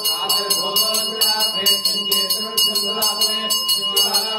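Brass temple hand bell (ghanta) rung continuously during the puja, about four or five strokes a second, its ringing tone held steady between strokes.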